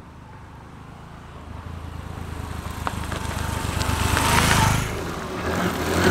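Small motorcycle engine running and growing louder over a few seconds, with a rushing noise that swells twice toward the end.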